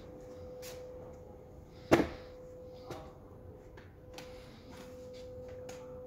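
A steady faint hum, broken by one loud, sharp knock about two seconds in and a lighter knock a second later, with scattered soft clicks and taps.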